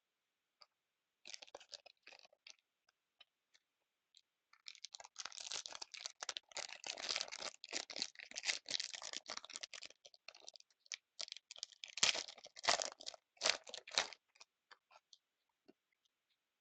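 A sealed box of trading cards being unwrapped and opened by hand: crinkling, tearing and scraping of packaging in irregular bursts. It is busiest from about five seconds in to about fourteen seconds.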